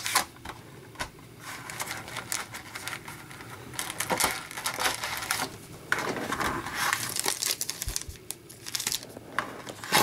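Shiny hockey card pack wrappers crinkling as the packs are lifted out of a tin and handled, in uneven bursts with small clicks and knocks.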